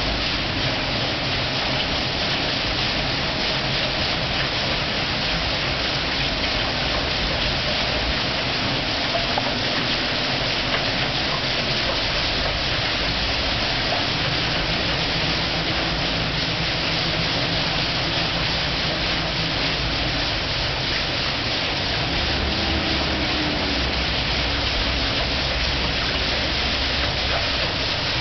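Water rushing and splashing through a mill's iron-spoked water wheel: a steady, unbroken rushing.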